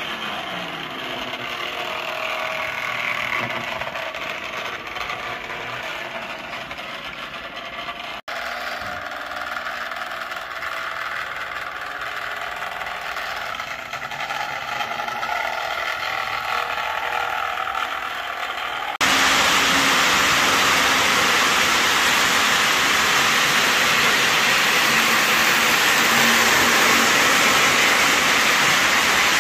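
O-gauge three-rail model train running on its track: a steady mechanical rumble and rattle of the wheels and motor. Briefly cut out about 8 seconds in; from about 19 seconds in, a sudden jump to a much louder, even, hiss-like rumble as the cars pass close.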